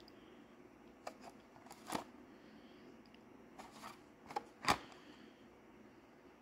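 Hot Wheels blister card handled and turned over in the hands: a few short crinkles and clicks of the plastic bubble and cardboard backing, the loudest about four and a half seconds in, over a faint steady hum.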